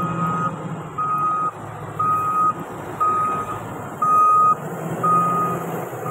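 TATA wheel loader reversing, its backup alarm sounding a single half-second beep about once a second over the diesel engine running.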